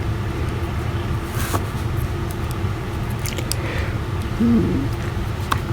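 A few light clicks of a phone's parts being pressed back together, over a steady low background hum.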